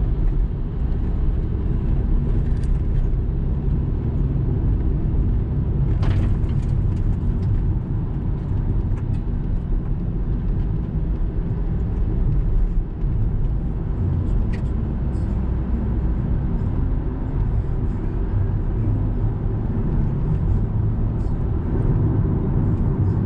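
Steady low rumble of a car driving at road speed: engine and tyre noise on the road surface.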